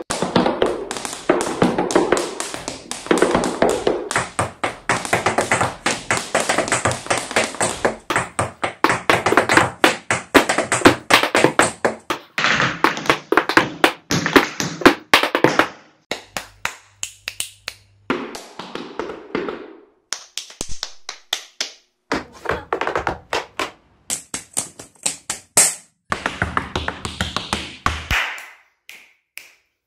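Tap shoes' metal taps striking hard floors in fast, rhythmic tap-dance patterns. The runs of taps break off briefly a few times.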